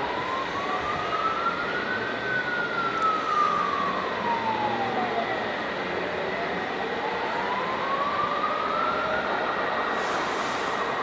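Emergency vehicle siren in a slow wail: the pitch rises through the first two seconds, falls until about five seconds in, then rises again, over a steady background of noise.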